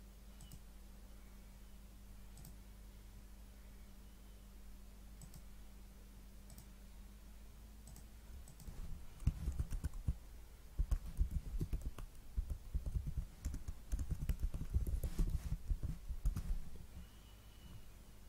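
Computer keyboard typing in quick runs of keystrokes through the second half, stopping shortly before the end. A few faint, scattered mouse clicks come before it.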